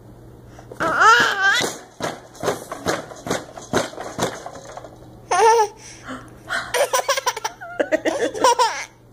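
A baby laughing: a high squeal that rises and falls about a second in, then several bursts of quick, breathy laughs.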